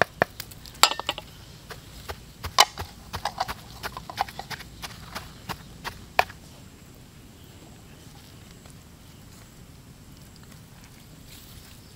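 Irregular sharp knocks and clacks, a few of them loud, coming unevenly for about six seconds, then stopping and leaving only faint steady background noise.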